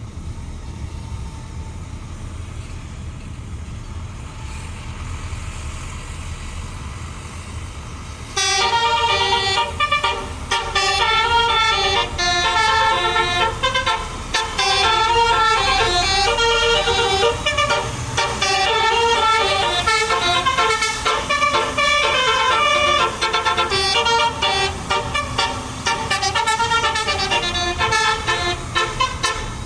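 A bus's basuri telolet musical horn plays a loud, running melody of changing notes. It starts about eight seconds in, after a stretch of low engine rumble.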